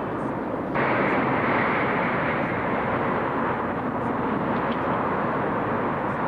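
Steady rushing outdoor noise that turns abruptly louder and brighter about a second in, then holds.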